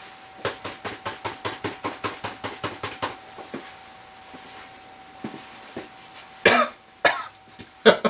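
Rapid, even tapping on the DeWalt random orbit sander's plastic dust canister, about six or seven taps a second for nearly three seconds, to knock the sanding dust out. A few more scattered taps follow, and then a few louder short noises near the end.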